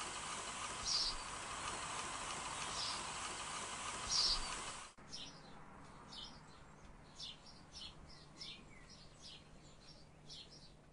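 Birds chirping in the background: a few short chirps about a second and a half apart over a steady noise. After a cut about five seconds in, it is quieter, with quicker, irregular chirps over a low hum.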